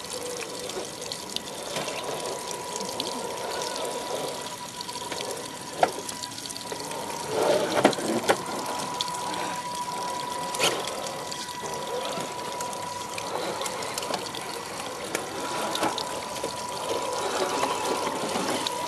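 Water trickling and dripping down a wet rock face, with a thin steady whine and a few sharp knocks, the loudest about midway through.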